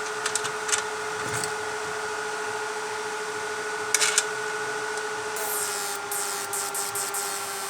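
Homemade 12 V inverter for electro-fishing whining steadily under a bulb load, a high hum over hiss. Several sharp clicks come near the start and about four seconds in, and a little after five seconds the whine drops slightly in pitch while the hiss grows.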